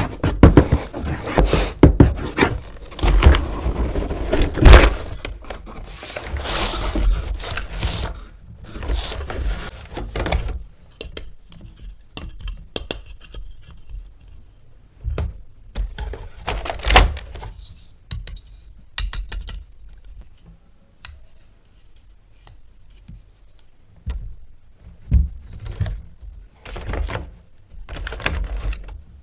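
Hands unpacking and handling plastic toys and their packaging: rustling, scraping, and small clicks and knocks of hard plastic. The handling is busy for about the first ten seconds, then thins out to scattered taps and clicks.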